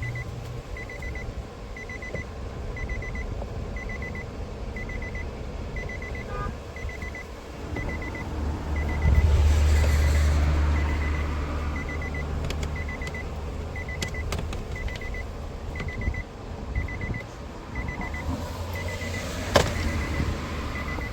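A car's warning chime beeping steadily about once a second, with a low vehicle rumble swelling about nine seconds in and again near the end. A few sharp clicks come from the door trim being pried with a screwdriver.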